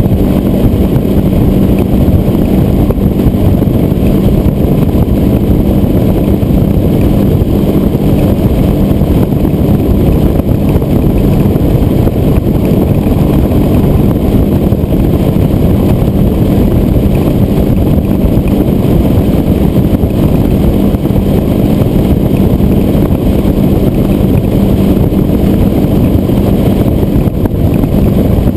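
Yamaha F150 four-stroke outboard running steadily at speed, pushing a Skeeter WX2000T tiller boat on plane. Its constant engine tone sits under a dense, loud rush of wind and water.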